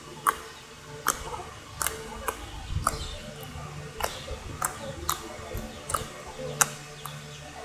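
Homemade clear-glue slime being squeezed and worked by hand, giving irregular sharp little pops and clicks, about one or two a second.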